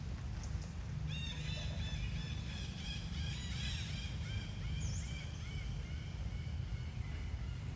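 A series of short, high-pitched animal calls, repeated rapidly and overlapping, over a steady low rumble.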